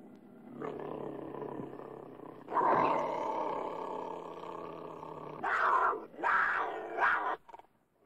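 Cougar growling and snarling. A long growl swells louder about two and a half seconds in and slowly dies away, then three short, sharp snarls follow in quick succession near the end.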